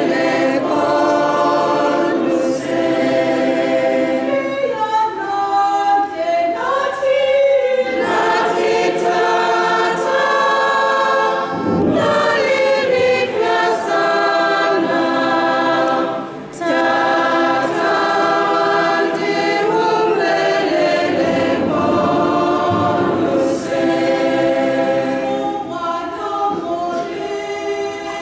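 Choir of religious sisters and congregation singing the penitential chant of the Mass in long held phrases, with a short break about halfway through.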